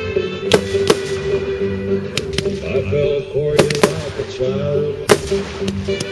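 Aerial firework shells bursting: about seven sharp bangs at uneven spacing, two of them close together about a second in and again near the middle.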